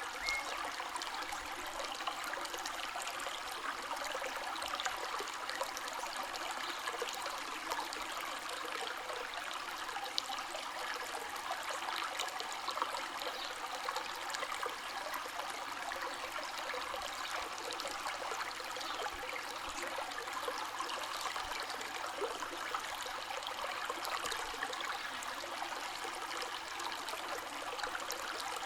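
Flowing river water: a steady, continuous rush and babble of moving water.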